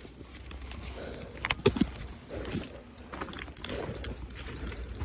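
Rustling and handling noise of a player moving, with a low steady rumble and a pair of sharp clicks about one and a half seconds in.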